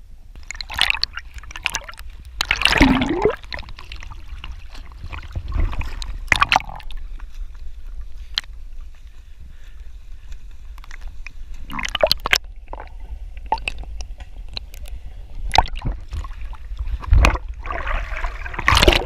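Lake water sloshing, gurgling and splashing around a GoPro held at the waterline by a swimmer, with irregular splashes from swimming strokes and a low rumble of water against the camera housing.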